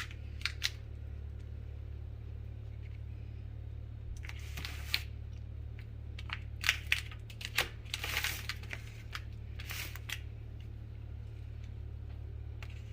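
Scattered clinks, knocks and scrapes of kitchen utensils and dishes being handled, over a steady low hum.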